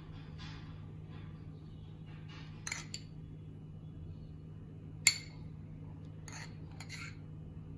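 Steel spoon clinking against glass bowls while condensed milk is spooned into whipped cream: a few scattered light clinks, the loudest about five seconds in.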